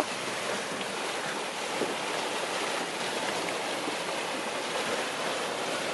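Steaming hot-spring mud pool venting and churning: a steady rushing hiss without distinct pops.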